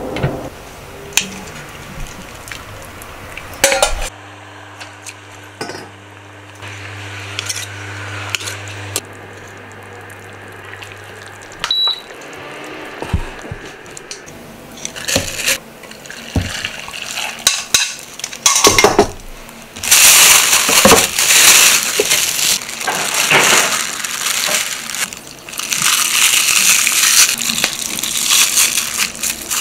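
Kitchen sounds: metal tongs clinking against a pot of chicken broth, then a steady hum from an IH induction cooktop for several seconds. From about two-thirds of the way in comes the loudest sound, dense crinkling of plastic wrap being wrapped around braised chashu pork.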